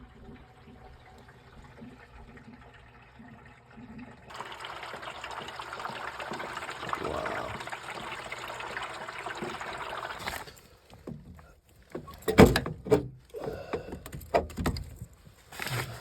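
Condensate water pouring out of a horizontal gas furnace's drain port in a steady stream for about six seconds, starting about four seconds in. The water had backed up because the furnace was draining through the wrong port, the cause of its gurgling. Then come sharp knocks and clatter as the drain plug is handled and pushed back in.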